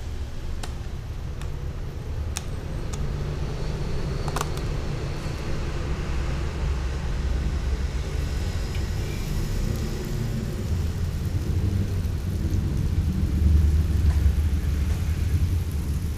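Low, steady rumble of a gas burner under a large aluminium wok, swelling briefly near the end. A few sharp clicks of a metal spoon striking the wok in the first few seconds, one of them ringing briefly.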